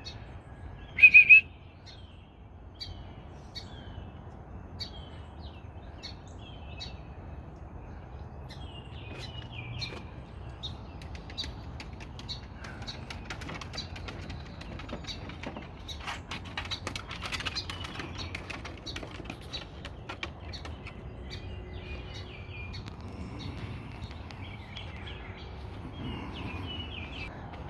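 Small birds chirping in short, repeated chirps about once a second, one louder chirp about a second in, over a steady low background hum. A cluster of faint clicks comes in around the middle.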